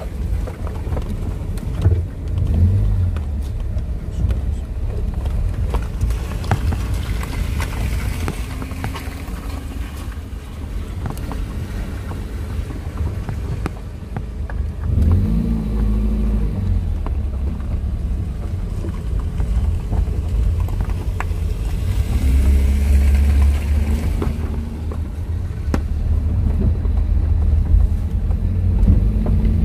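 Engine and tyre noise of a moving car heard from inside the cabin: a steady low rumble whose pitch rises and falls as the engine changes speed, with a few brief knocks from the rough, patched road surface.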